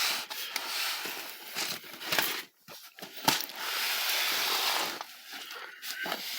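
Crinkling and rubbing handling noise as a box of packed marbles is opened and its plastic packs are moved about, with a few light knocks.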